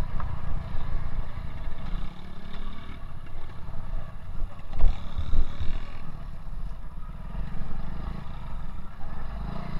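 Honda Win single-cylinder motorcycle engine running at low speed on a rough dirt trail, with a steady low rumble and a thump about five seconds in.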